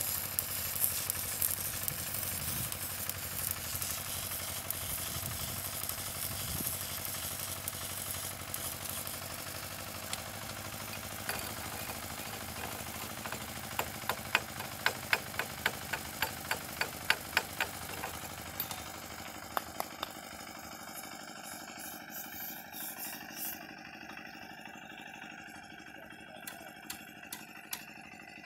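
Stick arc welding on a steel railway rail: the welding arc crackles and hisses for roughly the first half, then dies away. Around the middle comes a run of sharp metallic taps, about three a second, typical of chipping slag off the fresh weld. Only scattered taps follow.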